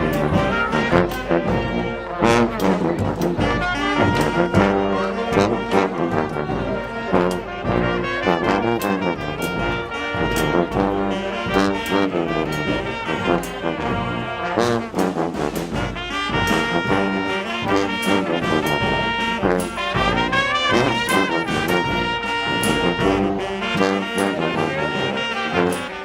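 Street brass band playing, with trombones and trumpets over sharp percussion hits.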